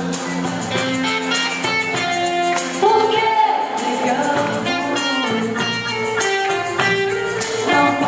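Live band music: women singing a song over guitar, with a tambourine shaken in time.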